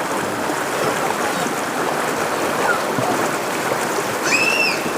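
Flowing stream water rushing steadily, with a short high-pitched call rising and falling about four seconds in.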